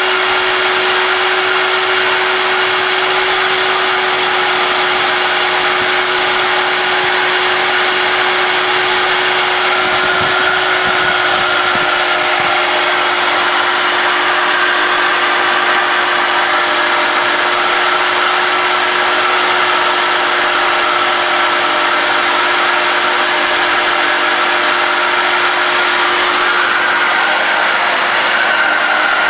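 Mercedes-Benz E320's M104 straight-six running at cold-start idle with a steady whirring whine, a higher whine joining about ten seconds in. The whir comes from inside the engine itself, since it persists with the drive belts removed, and it fades once the engine has run a couple of minutes; its cause is unknown.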